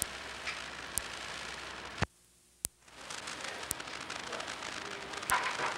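Steady hiss and crackle of an old home-movie sound track, with scattered sharp clicks. About two seconds in it drops almost to silence for under a second, marked by a click, where the film cuts from one scene to the next.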